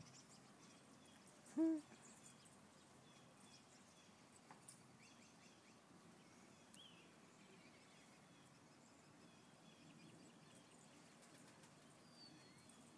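A single short hoot-like animal call, about a second and a half in. The rest is near silence with faint, scattered bird chirps.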